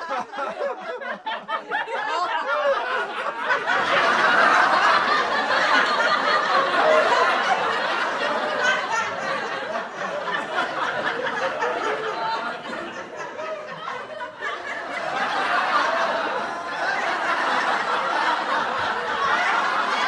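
A group of people laughing together, with giggles and chuckles overlapping. The laughter starts thin and broken, swells into a full, continuous burst about four seconds in, eases off about three-quarters of the way through, and builds again.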